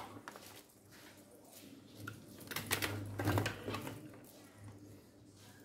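Small handling noises of electrical wires being moved and twisted together by hand: light clicks and rustles of cable against the bench, busiest from about two and a half to three and a half seconds in.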